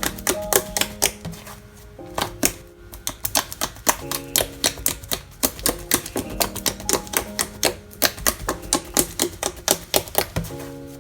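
Slime being squeezed and poked, giving rapid crisp clicks and pops several times a second, over light background music.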